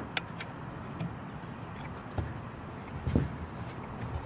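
A few scattered small clicks and light knocks of a hand Allen key turning in the lower screw of a roof crossbar's mounting bracket, with a duller knock about three seconds in, over a steady background hiss.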